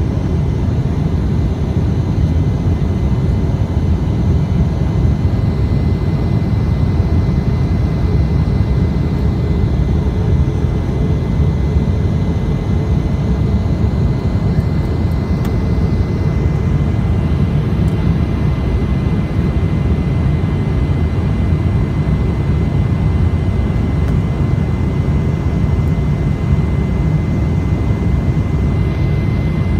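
Jet airliner's turbofan engines and airflow heard from inside the passenger cabin during the climb after takeoff: a steady low rumble with a thin, steady high whine above it.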